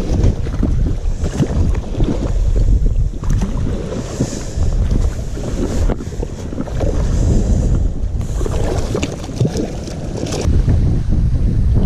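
Strong wind buffeting the microphone: a loud, gusty rumble that swells and eases.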